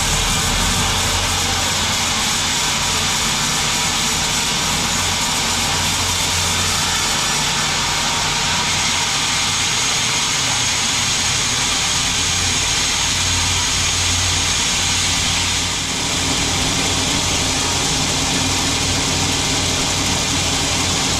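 Band sawmill running, a steady machine noise with a low engine hum and a hiss. There is a brief dip about three quarters of the way through.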